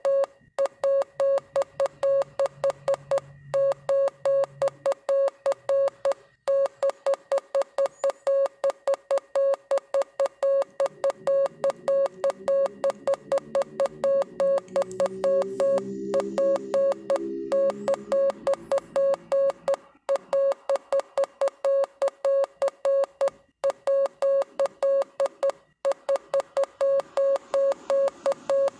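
Morse code: a single steady mid-pitched beep keyed on and off rapidly in dots and dashes, with short breaks between groups. A fainter, lower tone swells and fades beneath the beeps in the middle.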